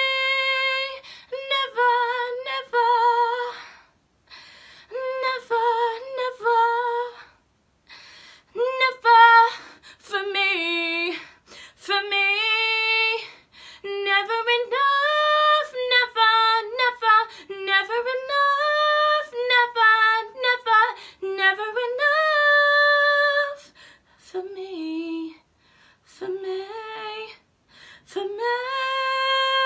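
A woman singing unaccompanied: long held notes and sliding runs up and down in pitch, with short breaths between phrases.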